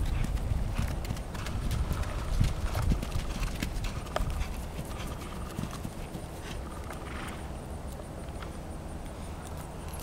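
Hoofbeats of a Peruvian Paso mare gaiting on grass, a quick run of clip-clops that thins out and softens about halfway through as she slows to a walk and stops.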